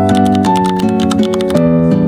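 Background music: a light instrumental track of quick plucked notes over a steady bass line.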